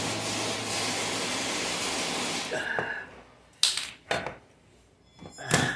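A steady hissing noise with a low hum stops about two and a half seconds in. Then come a few sharp clicks and knocks as an analog multimeter is picked up and handled on a workbench.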